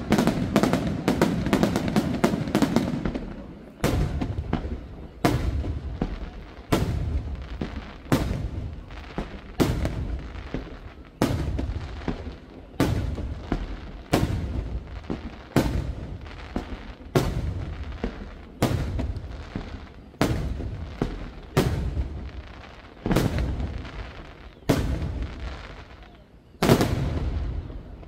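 Aerial firework shells bursting in a professional display. The first few seconds hold a dense run of rapid bangs and crackles, then loud booms follow one about every second and a half, each trailing off in a rumbling echo.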